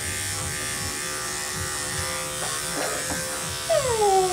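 Corded electric dog-grooming clippers with a #10 blade running with a steady buzz as they shave through a poodle's matted coat. Near the end a short cry falls in pitch and is the loudest sound.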